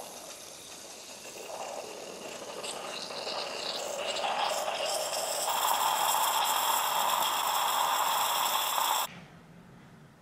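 Coffee machine running and dispensing coffee into a mug of frothed milk, a hiss of flowing liquid over a pump whine that grows louder and steady before stopping abruptly about nine seconds in.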